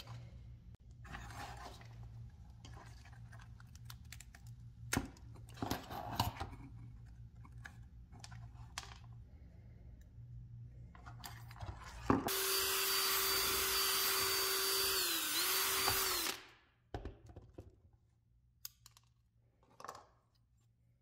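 Small metal flashlight parts handled and clicked together. About twelve seconds in, a cordless drill runs steadily for about four seconds, its whine dipping briefly once before it stops.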